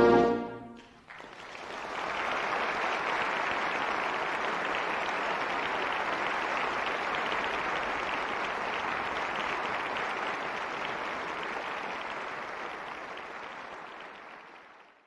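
A symphonic wind band's final chord dies away in the hall, then audience applause starts about a second in, holds steady and fades near the end before cutting off.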